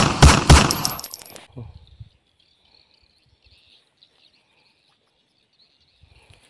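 Loud, rapid knocking and rattling close to the microphone while a just-caught snakehead fish is handled, stopping about a second and a half in; then near silence with a faint high insect hum.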